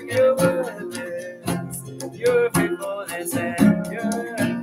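Acoustic guitar strummed along with hand strikes on a djembe drum, with voices singing a melody over them.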